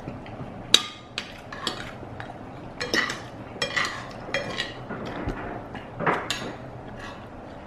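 Forks and spoons clinking and scraping on black sizzle plates while people eat, a dozen or so separate short clicks and scrapes, the sharpest about a second in.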